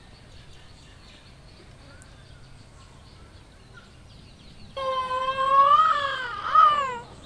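Faint outdoor ambience with a few scattered bird chirps. About five seconds in, a loud, high-pitched voice comes in, held for about two seconds and wavering up and down before it breaks off.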